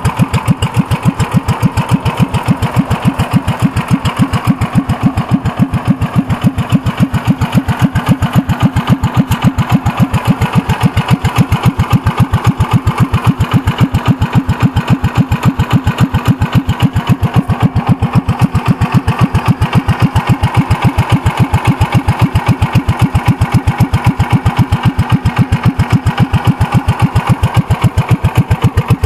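Commuter TE390 three-wheeler's engine idling steadily, with a fast, even putter.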